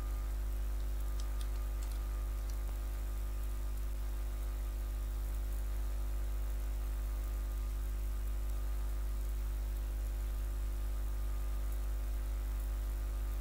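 Steady low electrical mains hum and buzz with a layer of hiss, unchanging throughout, with a few faint clicks about one to two and a half seconds in.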